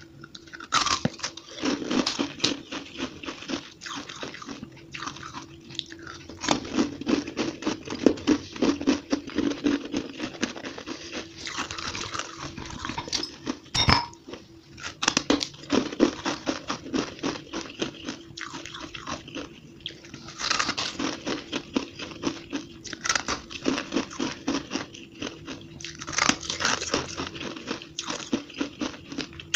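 Close-miked crunching and chewing of fluffy, frosty ice, dense crackling crunches coming in bursts, played back at double speed. A single sharp knock stands out around the middle as a chunk is lifted from a glass bowl.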